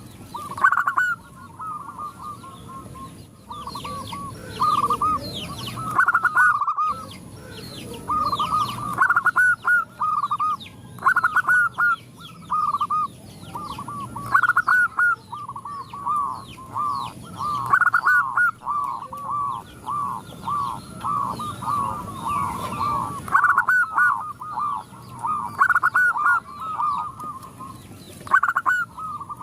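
Zebra doves (perkutut) cooing over and over, several birds at once in overlapping runs of short coos: a female's call setting the group off calling. Fainter high chirps of small birds sound behind them.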